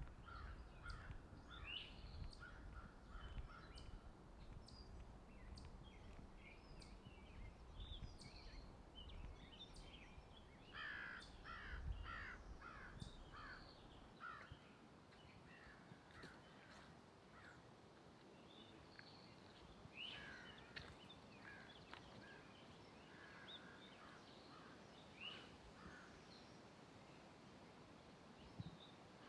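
Birds calling and chirping in a forest, with a quick run of calls about halfway through. Soft footsteps on the trail thud underneath during the first half, then fade.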